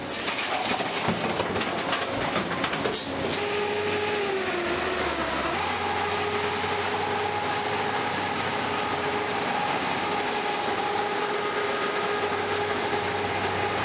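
Heavy earthmoving machinery clearing rubble. There is clattering and scraping for the first three seconds or so, then a machine runs steadily with a droning whine that dips briefly in pitch about five seconds in.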